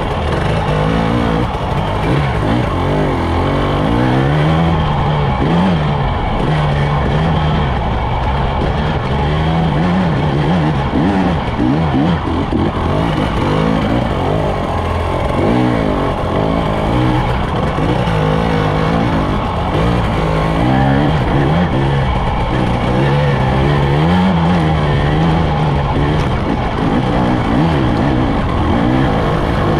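Husqvarna TE 300i two-stroke dirt bike engine, heard close up from the front fender, revving up and down continuously as the rider works the throttle on and off along the trail.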